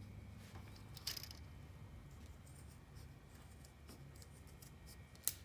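Strap webbing being cut: a few faint snips and rustles, with a sharp click near the end.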